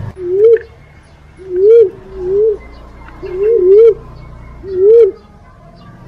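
Lure-call recording of the punai walik, a fruit dove: a series of short, low hooting coos, each rising and then falling in pitch. There are about six at uneven intervals, two of them in a quick pair midway.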